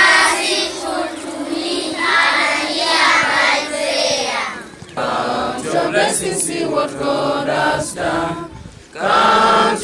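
A large group of children's voices chanting together in unison. After a break about five seconds in, a group of older boys starts singing together.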